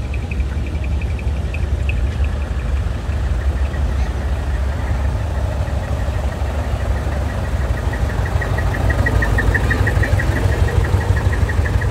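Large diesel truck engine idling with a steady deep rumble. Over it runs a rapid high ticking pulse, fainter at first and louder near the end.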